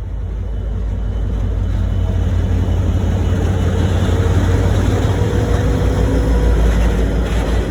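V/Line A class diesel-electric locomotive A66, with its EMD two-stroke V16, pulling away: a deep engine rumble that grows louder over the first two or three seconds and then holds steady.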